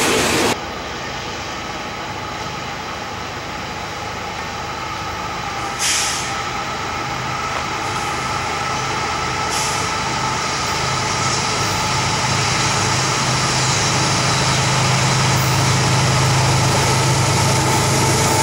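GE ES44AC diesel locomotives approaching, their engines' low hum growing steadily louder over the last several seconds. Two short hisses come about six and nine and a half seconds in.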